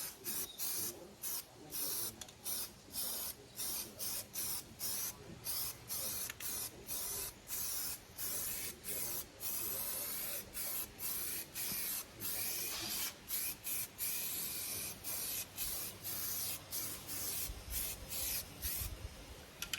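2K aerosol spray can hissing as a paint coat goes on, the spray cut by short breaks about twice a second.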